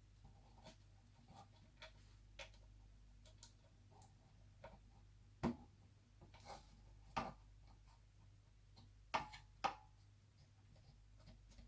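Scattered faint clicks and light taps of small parts and tools being handled on an open laptop chassis. The sharpest knocks come about five and a half, seven, and nine seconds in, over a low steady hum.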